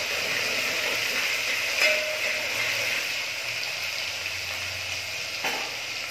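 Onion and ginger-garlic paste frying in hot oil in a metal pot, sizzling steadily. A spoon clinks against the pot twice, about two seconds in and near the end.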